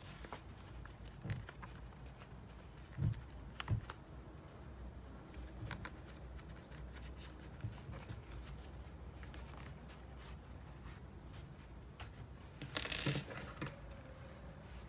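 Quiet handling noises of hands working a crocheted amigurumi piece, with scattered small clicks and taps, two soft knocks about three seconds in, and a brief rustle near the end.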